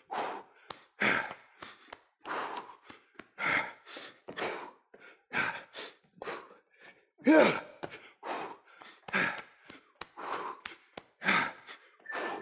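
A man breathing hard from exertion, in sharp gasping breaths about two a second, with one voiced grunt about seven seconds in.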